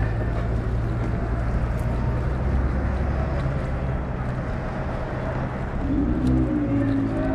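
Steady low rumble of street traffic, with an engine hum underneath.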